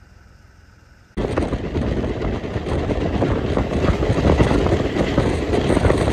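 Loud, steady rushing noise of a moving car with wind buffeting the microphone. It comes in suddenly about a second in, after a faint low hum.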